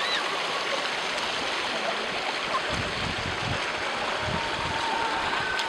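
Hot-spring water running and gurgling over travertine terraces, a steady rushing wash.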